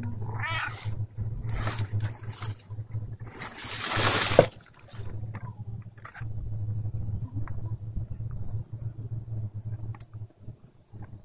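Calico cat giving a short meow near the start, then crinkling packing paper as it burrows into a cardboard box. The paper noise is loudest about four seconds in. A low pulsing purr runs under most of it.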